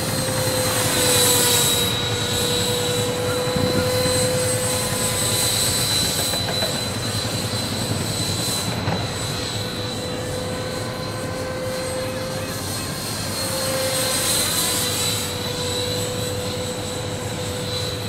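A 64 mm eight-blade electric ducted fan on a brushless motor whining steadily as the RC model flies, over a wind noise hiss. The whine swells twice as the model passes near, about a second in and again near the end.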